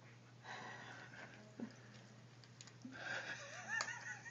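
Quiet room tone: a steady low hum under a few faint small clicks, with a brief faint wavering sound near the end.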